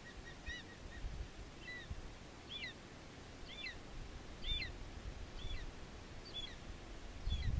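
Juvenile black-chested buzzard-eagle calling: a thin, high whistled note that slides down in pitch, repeated about once a second, eight times in all. A low rumble runs underneath.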